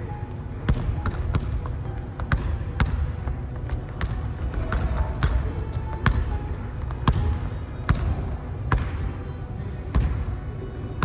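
Basketball dribbled on a hardwood gym floor: a run of sharp bounces, roughly two a second, somewhat uneven in rhythm.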